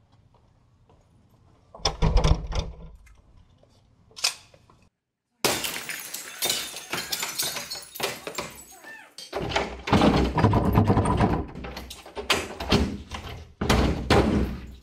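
A classroom door being forced. First a couple of sharp knocks, then the door's glass window is smashed in a burst of crashing and clattering, then repeated heavy thuds as the door is battered. The door stays shut, held by a floor-anchored steel barricade.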